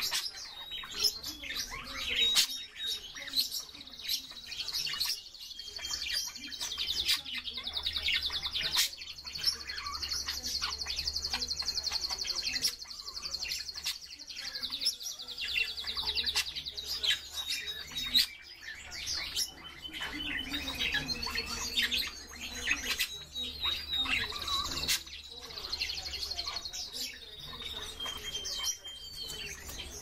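Mixed cage birds, budgerigars among them, chirping and twittering without pause. There are long rapid chattering trills, from about a quarter of the way in to about halfway, and again later, scattered with sharp clicks.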